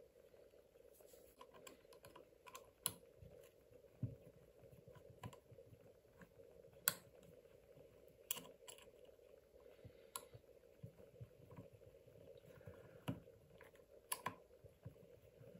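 Light, irregular clicks and taps of small screws, fan parts and a screwdriver being handled while an ESC cooling fan is screwed onto its heat sink, over a faint steady hum.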